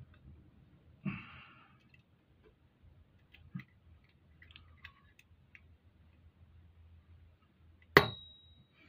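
Small metal tools scraping and clicking against the cam gears and tappets in an open motorcycle cam chest. About a second in there is a short scrape, then a few light clicks, and near the end one sharp metallic clink that rings on briefly.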